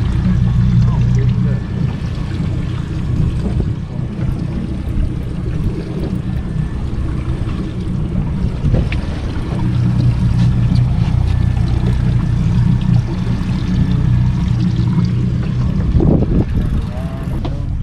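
Boat engine running steadily at sea, a constant low hum, with wind and water noise over it.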